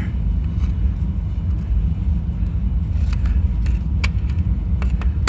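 A steady low rumble, with a few light clicks and taps from about three seconds in.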